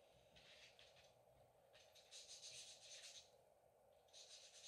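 Faint scratchy rubbing of a 3D-printed die and gloved hand on a sheet of 600-grit sandpaper, in three short spells: briefly near the start, for about a second and a half in the middle, and again near the end.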